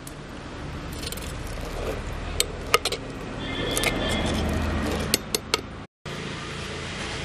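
A steel ladle stirring boiled cowpeas in a clay pot: sharp clinks as the ladle knocks against the pot, and a longer scraping rattle of beans in the middle. A low steady rumble runs underneath.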